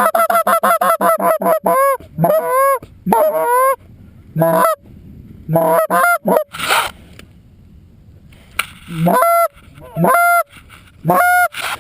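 Goose call blown close to the microphone to work circling geese: a fast run of clucks, about seven a second, then single drawn-out honks spaced a second or so apart, with a brief rush of noise about two-thirds of the way through.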